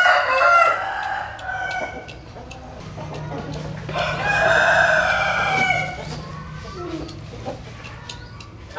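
A rooster crowing: one long crow of nearly two seconds about four seconds in, after the tail of an earlier call at the very start.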